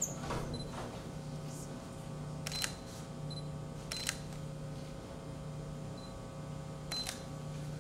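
A camera shutter clicks three times, a second or more apart, with short high beeps between the shots, over a steady hum.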